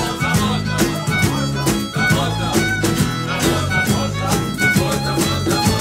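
Acoustic folk band playing an instrumental passage: a violin carries the melody over strummed acoustic guitars, bass and a steady hand-drum beat.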